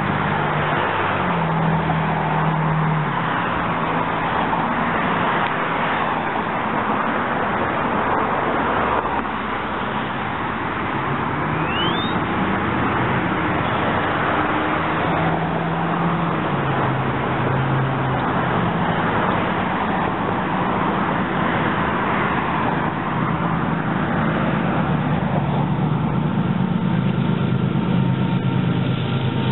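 A CSX GE ET44AH diesel locomotive approaching at the head of an intermodal train: a low engine drone that shifts in pitch now and then, over a steady hiss of noise.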